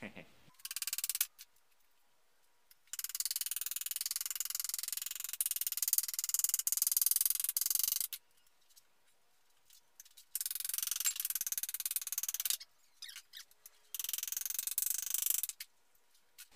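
Hand hammer beating the edge of a steel sheet panel held between wooden boards in a vise, folding it over into a flange. The hammering comes as rapid, high-pitched metallic taps in several bursts, the longest about five seconds, with a few separate clicks between them.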